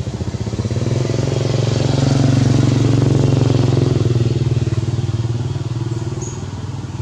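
Engine of a passing motor vehicle, a steady low hum that grows louder over the first two seconds and then slowly fades.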